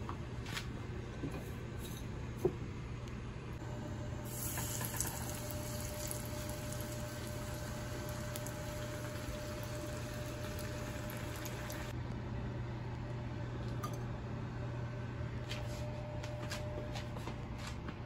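Oil sizzling in a frying pan for several seconds, then cutting off abruptly, over a steady low hum. A few light clicks come earlier, one sharp one about two seconds in.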